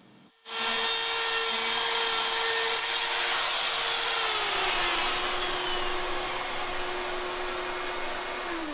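Rotozip spiral-saw cutout tool with a dust-extraction vacuum hose, starting up abruptly about half a second in and cutting a round opening through ceiling drywall with a steady high whine and grinding. Its pitch drops a little about halfway through, then falls away near the end as the motor spins down.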